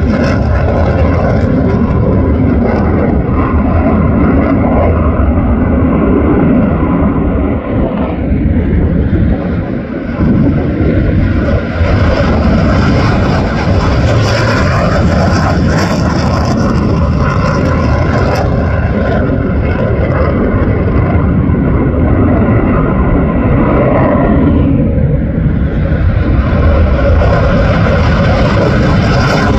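Loud engine noise from an F-22 Raptor fighter's twin jet engines as it flies past: a steady heavy rumble with a hiss on top. The upper hiss thins out briefly about ten seconds in and again about twenty-five seconds in.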